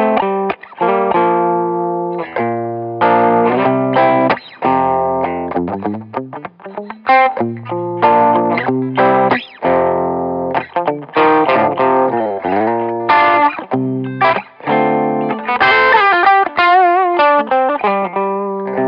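PRS McCarty 594 electric guitar playing lead lines and chords over a backing track with a bass line. There is a note bent in pitch about twelve seconds in and a sustained note with wide vibrato near the end.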